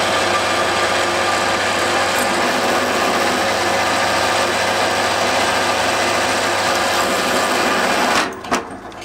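Drill press motor running steadily while a 4 mm twist bit cuts through a flat steel bar held in a machine vice. The noise cuts off sharply about eight seconds in.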